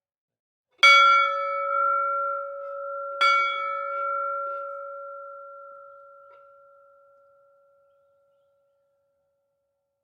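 A bell struck twice, about two and a half seconds apart, each strike ringing on with a clear steady tone that slowly fades away.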